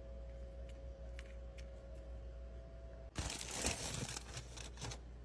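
Faint steady hum with a few light clicks, then about three seconds in a louder stretch of rustling and crinkling lasting about two seconds: handling noise.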